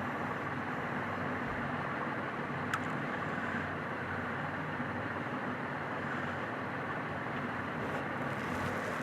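Steady low hum and hiss of background noise, with one small sharp click a little under three seconds in.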